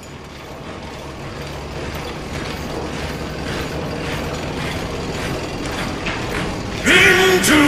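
Tank tracks clanking and rattling with engine rumble, fading in and growing steadily louder. Loud heavy metal music comes in about seven seconds in.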